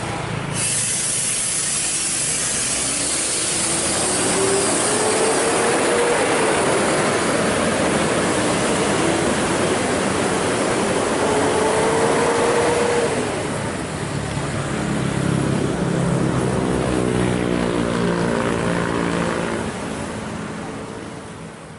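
Mercedes-Benz coach's diesel engine accelerating as the bus pulls away, its pitch rising, dipping briefly, then rising again before dropping off about two-thirds of the way through. A burst of hiss comes about half a second in, and heavy traffic noise runs underneath, with other vehicle engines near the end.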